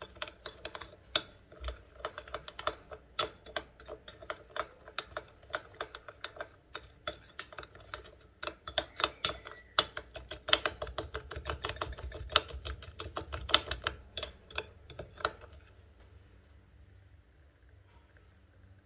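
Metal spoon stirring a sugar-and-milk glaze in a ceramic bowl, clicking against the bowl several times a second. The stirring stops about 15 seconds in.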